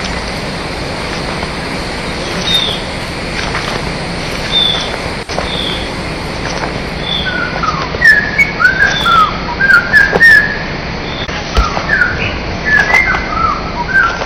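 Birds calling, a field recording played slowed down: a few short whistled chirps at first, then from about eight seconds in a dense run of lower, sweeping chirps, over a steady hiss.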